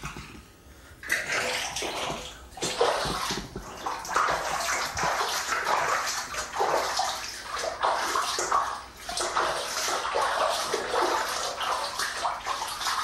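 Shallow bathwater splashing unevenly as hands wash a kitten in the tub, starting about a second in.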